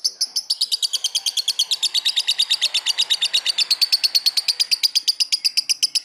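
Lovebird singing a long, unbroken chattering trill of rapid high chirps, about a dozen a second, growing fuller about half a second in.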